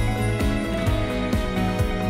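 Background music with sustained tones over a steady beat of about two drum strokes a second.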